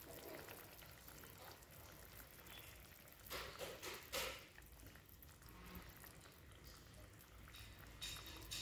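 Faint bubbling of simmering kuzhambu gravy, with a few soft wet plops and drips as chana dal balls are lowered into it one at a time, the clearest about three to four seconds in and again near the end.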